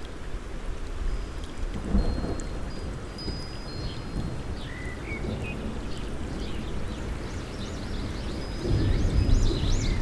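Steady rain with low thunder rumbling, the rumble swelling near the end. Birds chirp high over it.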